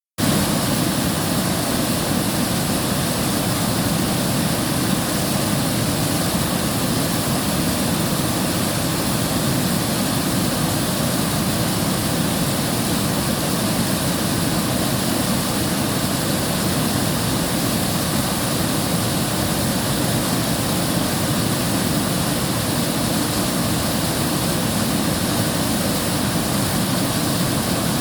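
River water rushing steadily, an even, full noise with no breaks.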